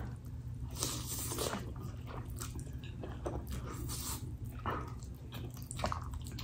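Close-up mouth sounds of a person eating noodles with her fingers: wet chewing and smacking, with slurping as the noodles are drawn in and scattered short clicks.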